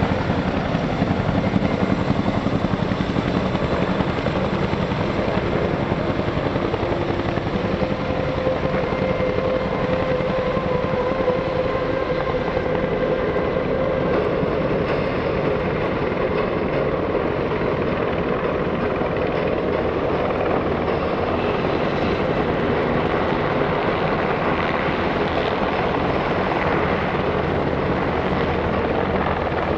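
Several military helicopters (UH-60 Black Hawks and a CH-47 Chinook) flying low with slung loads, their rotors and turbine engines running steadily together. A faint whine rides over the rotor noise in the middle.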